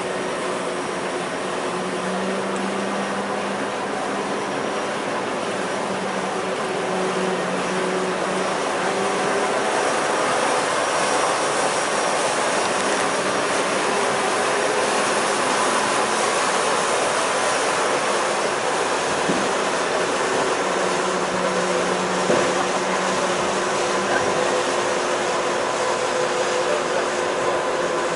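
Class 234 'Ludmilla' diesel locomotive with its V16 diesel engine running steadily at idle, a loud even drone with a constant hum, while it is slowly turned on a turntable. A single light knock comes about two-thirds of the way through.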